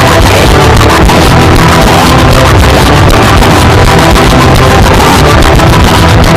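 Loud, dense music that keeps up a steady, unbroken level throughout.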